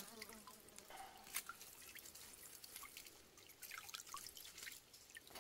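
Water dripping and trickling off a collapsible net fish trap lifted out of a stream, in faint scattered drips.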